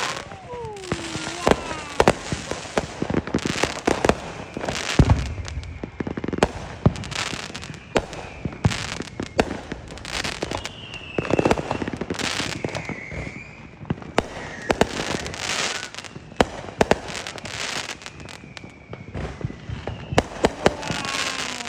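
Aerial fireworks going off: many sharp bangs and crackles in quick, irregular succession.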